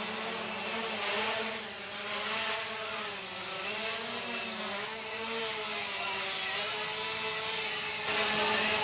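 A 500 mm quadcopter's electric motors and propellers whirring in flight. The pitch wavers up and down as the throttle is worked, and the sound gets suddenly louder about eight seconds in.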